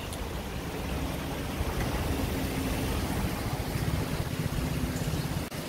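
Steady rush of flowing river water, with a low motor hum underneath.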